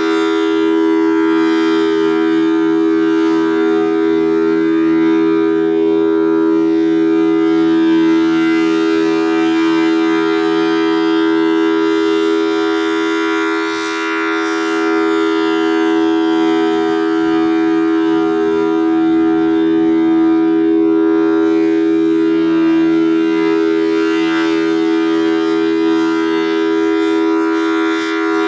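Federal Signal Thunderbolt 1000T outdoor warning siren sounding a steady full-alert tone. Its 4/5-port chopper gives a two-note chord. The level dips briefly about halfway through as the rotating head turns away.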